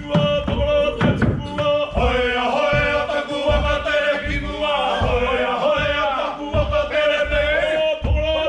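A group of male Māori performers chanting and singing together to acoustic guitar, with a steady low beat of thuds about every two-thirds of a second.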